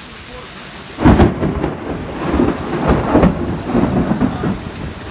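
Heavy rain falling steadily, then about a second in a sudden loud thunderclap that rolls on as rumbling thunder over the rain.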